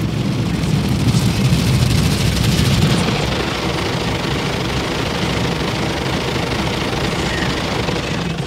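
Automatic car wash heard from inside the car's cabin: a rotating red foam brush scrubbing across the windshield while water sprays the glass. It makes a steady heavy rumble with hiss, loudest from about one to three seconds in.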